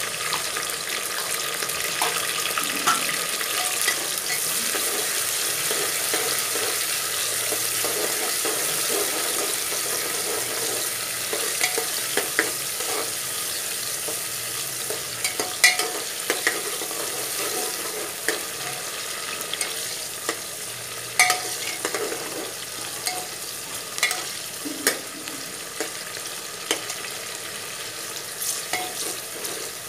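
Chopped onion, green chilli and tomato sizzling in hot oil in a pressure cooker, with a steady hiss, while a metal ladle stirs them and clacks and scrapes against the pot. The clacks come more often in the second half.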